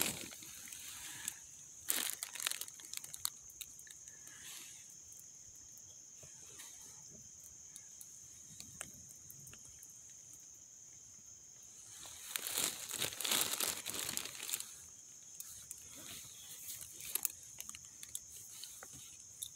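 Small wood cooking fire crackling under a camp pot, with scattered sharp pops and snaps. About twelve seconds in, a denser run of crackling lasts two or three seconds.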